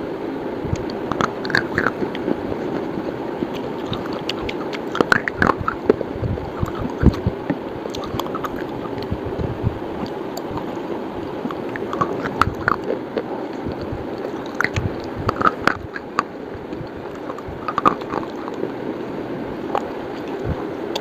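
Someone biting and chewing a slate bar (slate pencil): scattered sharp crunches and clicks, some in quick clusters, over steady background noise.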